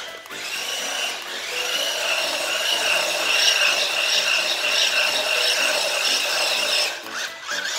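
Xinlehong 9137 1/16-scale RC truck's brushed electric motor and gear drivetrain whining steadily as it drives. The pitch climbs a little in the first second or so, holds level, then the whine cuts off suddenly about seven seconds in.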